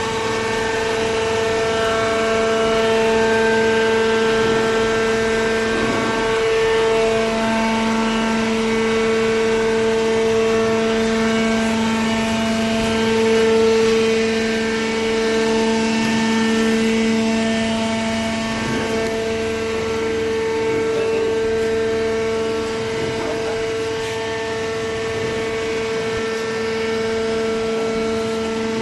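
Hydraulic baler machine running with a steady machine hum of several held tones; a lower tone comes in about seven seconds in.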